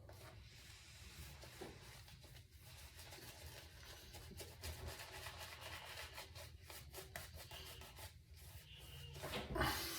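Double-edge safety razor scraping through lather and stubble, a faint, crackly rasp.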